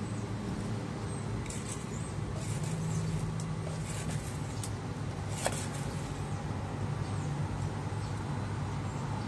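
Steady low machine hum with a few faint clicks, one sharper click about five and a half seconds in.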